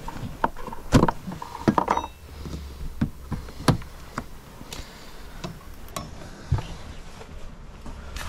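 UPVC glazing bead being pulled from the window frame and handled: a run of sharp plastic clicks and knocks, the loudest about a second in.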